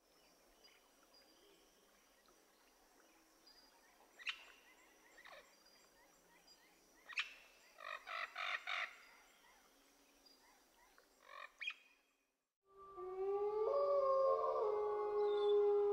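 Faint woodland ambience with birds chirping, including a quick run of calls about 8 seconds in. After a short silence near the end, a much louder siren-like wail starts, its tones sliding up and then holding steady.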